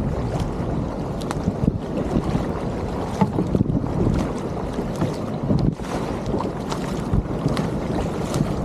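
Wind noise on the microphone over sea water sloshing, with the splashes of double-bladed paddles dipping in as a two-person surfski is paddled.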